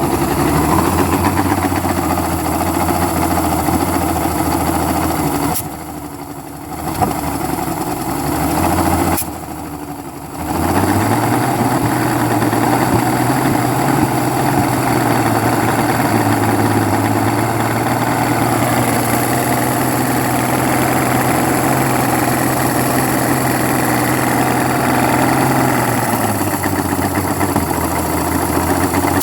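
Johnson 225 V6 two-stroke outboard running at idle, spitting and coughing: an intermittent cough from one carburettor and small backfires at another, in an engine started for the first time after twelve years of sitting. The sound drops away briefly twice in the first ten seconds, then the engine runs a little faster until near the end, when it settles back.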